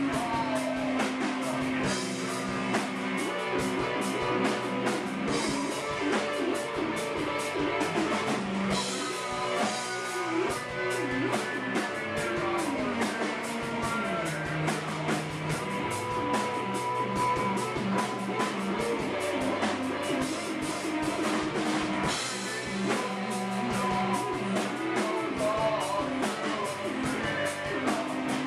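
Live rock band playing an instrumental stretch of a song, with electric guitar lines sliding in pitch over steady drumming.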